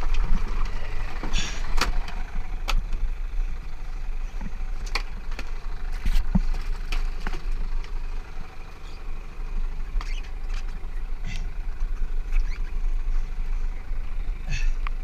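Small boat's outboard motor idling with a steady low rumble. Scattered knocks and clicks of gear being handled on the fibreglass deck come through over it.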